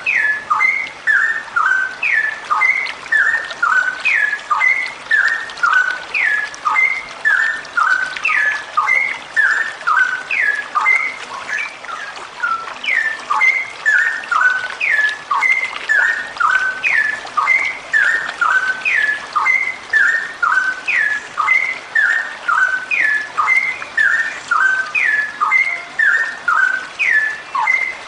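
Female straw-headed bulbul (cucak rowo) singing a long, unbroken run of quick falling whistled notes, several a second, in the continuous rapid style keepers call ropelan.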